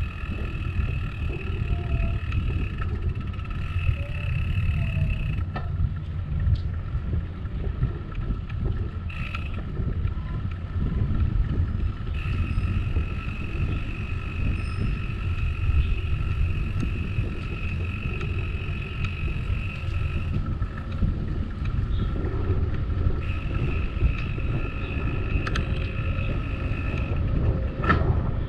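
Riding noise from a bicycle with a handlebar-mounted camera: steady low rumble of wind on the microphone and tyres on a concrete path. Above it, a steady high-pitched buzz comes and goes several times.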